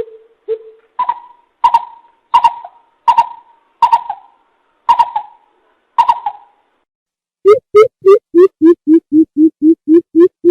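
Greater coucal (bìm bịp) calls: a series of deep hooting notes spaced well apart, each with a ringing tail, then a faster, louder run of deep hoots starting about three-quarters of the way in.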